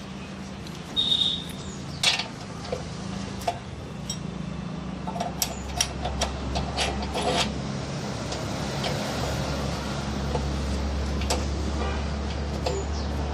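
Spanner tightening the nut on a Royal Enfield Classic 350's front wheel: scattered metal clicks, knocks and scrapes of the tool working the nut, over a low steady hum.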